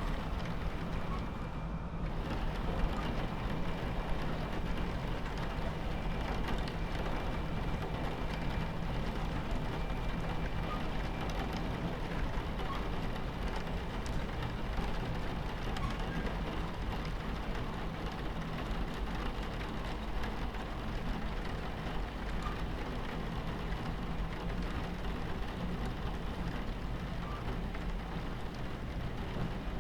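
Steady low rumble of a train running on its tracks, with rain pattering against the carriage window.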